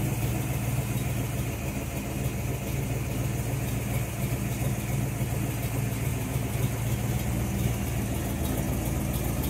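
A 1957 Chevrolet Bel Air's 396 small-block V8 idling steadily, exhausting through fenderwell headers.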